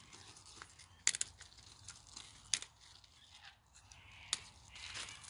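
Faint rustling and crackling of dry leaves and plant stems, with three sharp snaps spread over the first few seconds and a longer rustle near the end.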